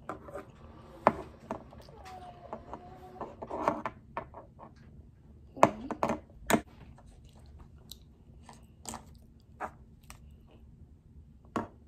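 Chewing and small mouth sounds mixed with a scatter of sharp plastic clicks and taps as a small Kinder Joy toy figure is handled and set down on a table. The two loudest clicks come close together about halfway through.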